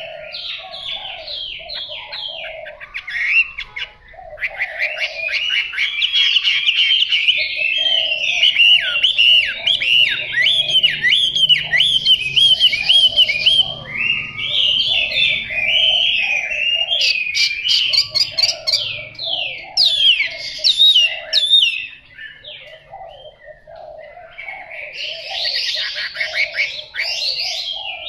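Chinese hwamei singing a long, varied song of rapid, sweeping whistled notes. There is a brief break about four seconds in and a quieter lull shortly before the end, after which the song starts again.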